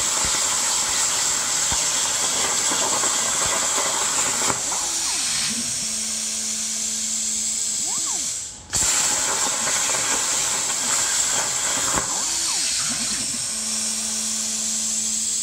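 CNC plasma cutter's arc hissing steadily as it cuts steel plate, with short motor whines as the torch moves. About eight and a half seconds in the hiss fades and stops for a moment, then starts again abruptly.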